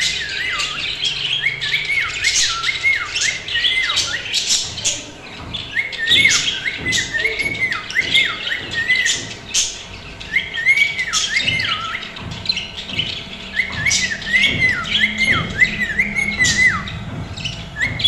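Pet cockatiels and other small parrots calling continuously: many short whistled chirps, each rising and then dropping, mixed with sharp squawks and chatter.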